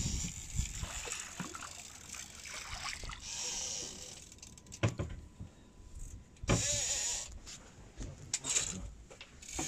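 Fishing reel whirring as line is wound in, in two short spells, with a couple of sharp knocks in between.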